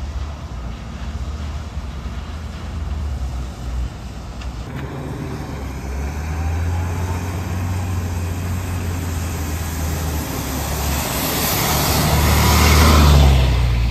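A low, steady diesel rumble, then a diesel coach bus approaching and passing close by, its engine and tyre noise growing louder to a peak near the end.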